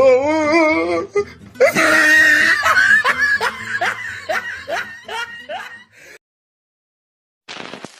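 A person laughing: a wavering, warbling laugh at first, then a run of short laughs that tails off and stops about six seconds in, followed by a short silence.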